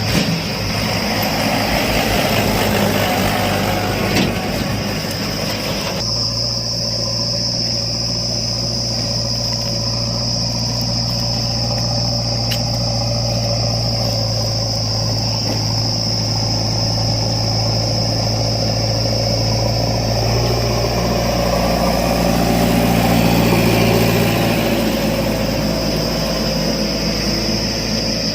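Diesel engines of a backhoe loader and farm tractors running, with a steady low hum and a continuous high-pitched tone over it. The sound changes abruptly about six seconds in, and grows louder for a few seconds past the middle as the engine is worked harder.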